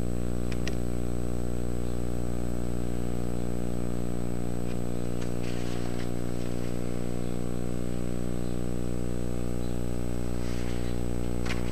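Engine lathe running during single-point thread cutting: a steady low hum with evenly spaced overtones, with a few faint brief ticks and hisses.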